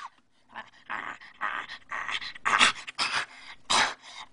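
A person panting in short, ragged, breathy huffs, about two a second, as a deliberately silly noise.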